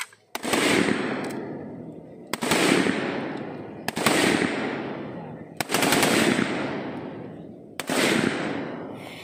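INSAS 5.56 mm rifles fired in single shots along a firing line: five loud shots about one and a half to two seconds apart, each followed by a long fading echo.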